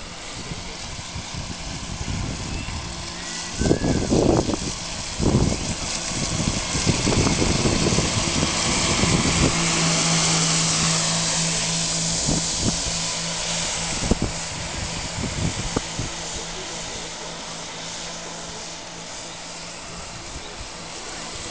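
Radio-controlled model boat running at speed, its motor and spray making a high-pitched hiss that swells as the boat passes close about ten seconds in, then fades as it runs away. A few low thumps around four to five seconds in.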